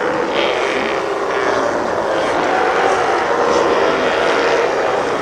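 A large group of sea lions, close to 150 animals, calling and barking all at once in a steady, pretty noisy din of many overlapping voices.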